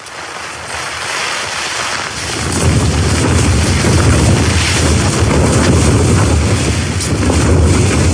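A strong gust of wind buffeting the tent, swelling into a loud deep rumble about two and a half seconds in and holding until it eases near the end.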